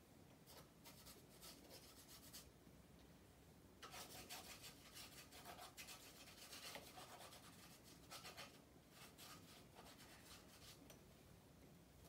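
Faint crinkling and rustling of tissue paper handled in the fingers, in short spells, densest from about a third of the way in.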